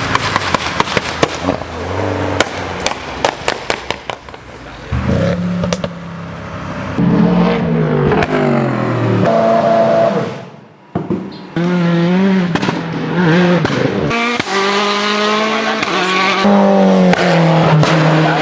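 Race car engines revving and backfiring: a rapid string of sharp exhaust pops and crackles in the first few seconds, then engines revving up and down with more pops between revs, from several different cars.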